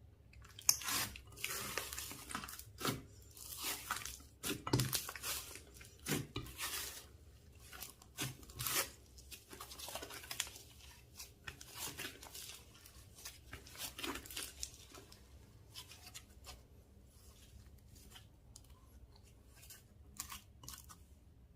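Slime being squished and stretched by hand: irregular wet crackling and popping, busiest in the first half and thinning out toward the end.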